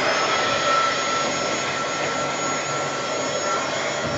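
Handheld electric blower switching on and running steadily, its fan motor giving a constant high whine over a rush of air, used to pop air bubbles in freshly poured acrylic paint.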